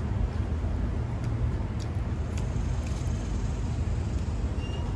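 Steady low rumble of outdoor street traffic, with a few faint ticks partway through.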